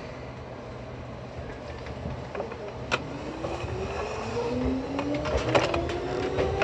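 Seibu 2000 series electric train pulling away: the traction motor whine rises steadily in pitch as the train accelerates, starting about two and a half seconds in. Sharp clicks from the wheels run through it, and the running noise grows louder toward the end.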